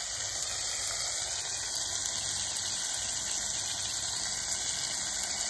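Catfish fillets and vegetables sizzling steadily in hot oil in a skillet.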